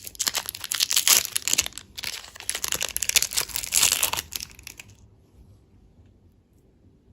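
Candy packaging crinkling and tearing as it is opened by hand. The crinkling is dense and crackly and stops about four and a half seconds in.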